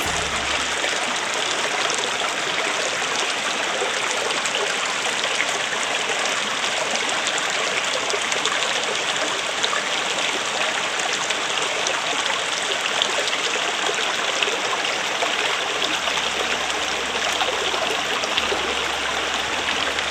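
Steady rush of flowing water, like a stream, unchanging throughout.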